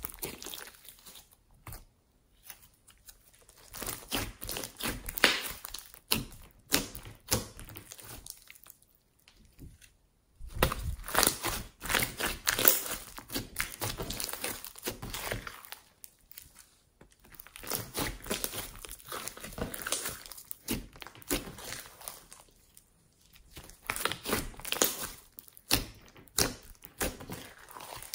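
Hands squishing, stretching and folding thick glossy slime mixed with foam beads (floam). Wet crackling and popping comes in bursts of a few seconds, with short quieter pauses between.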